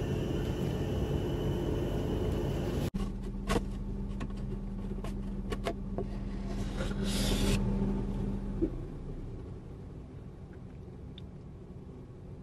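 Steady low rumble and hum of a car interior, with a run of light clicks and a short rustle a few seconds in as a moulded-pulp takeaway box is handled and its lid opened.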